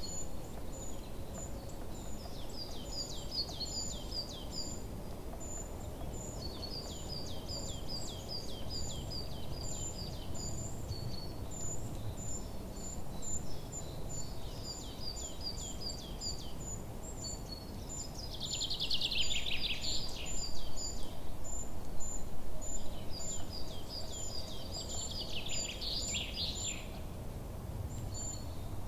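Birds chirping in repeated phrases of quick, high, falling notes over a steady background hiss, with louder bursts of chirping about two-thirds of the way through and again near the end.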